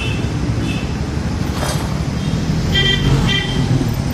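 City road traffic rumbling steadily, with short car-horn toots, two of them close together about three seconds in.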